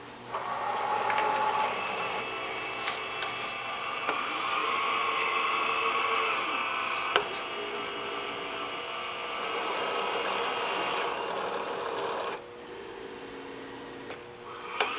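Dynapace 90-degree PCB turn unit running: its conveyor drive motors whir steadily with a few sharp clicks. The whir stops about twelve seconds in and starts again near the end.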